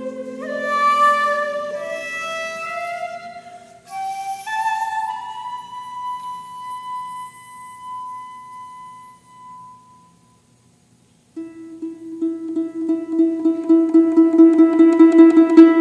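Shakuhachi (end-blown bamboo flute) playing a rising phrase that ends in one long held note, which fades away. After a short pause a concert harp comes in with rapid plucked notes over a low ringing note, growing louder.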